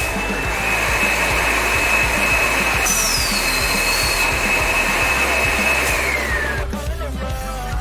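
Background rock music in an instrumental stretch: a steady hiss under a high held tone that slides down in pitch about six seconds in, when the hiss cuts off and the song carries on.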